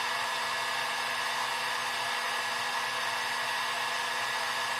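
Maestro hot air gun blowing steadily, a rush of air with a low hum and a high whine, heating a chip on a circuit board to melt its solder for removal.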